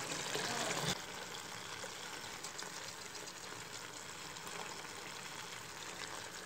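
Turkey stew with potatoes and carrots simmering in a pot as a wooden spoon stirs it: a steady, even hiss of bubbling liquid. It is louder for the first second, then drops a little and holds steady.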